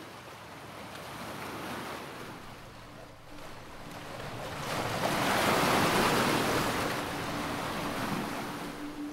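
Sea surf washing on a shore with wind, the rush of the waves swelling to its loudest about halfway through. A faint low held tone comes in partway through and grows near the end.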